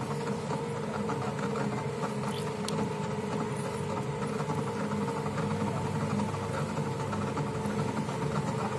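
Electric potter's wheel running at a steady speed, its motor giving a constant hum with a fast, even buzz while clay is thrown on it.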